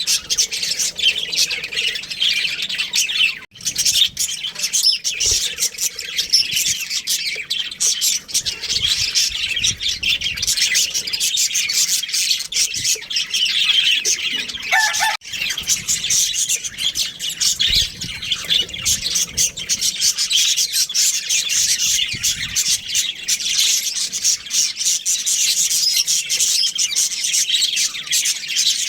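Budgerigars chattering: a dense, continuous stream of quick high chirps and warbles.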